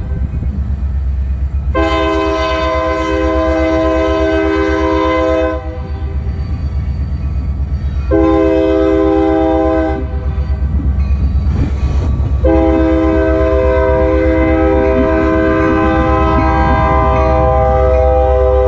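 Union Pacific diesel locomotive's multi-chime air horn sounding a long blast, a short one, then a long one held to the end, the close of the long-long-short-long grade-crossing warning. Under it runs a steady low rumble of engine and wheels as the train rolls up and passes close by.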